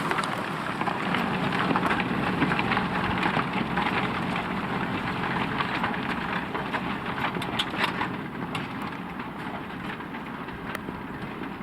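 Valtra T.153 tractor working with a Pöttinger plough: a steady engine note with a lot of rattling clicks, growing gradually fainter as it moves away.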